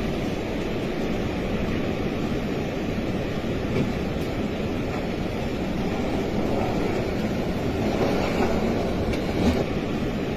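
Steady low rumbling noise with no clear rhythm, swelling slightly near the end.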